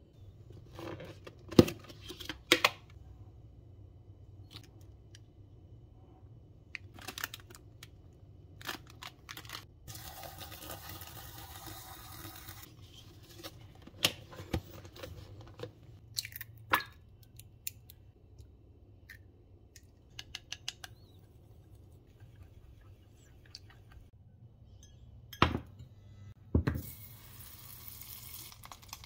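Hard plastic noodle-bowl lid and packaging being handled: scattered sharp clicks and knocks, and a few seconds of crinkly tearing and rustling. Near the end a steady hiss begins as butter sizzles in a small stainless-steel saucepan.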